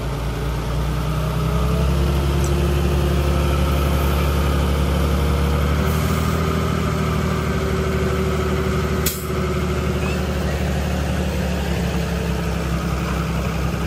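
Dump truck's diesel engine running steadily while its hydraulic hoist raises the loaded bed to tip out soil. The engine grows louder about a second in, a steady whine rides over it, and there is one sharp click about nine seconds in.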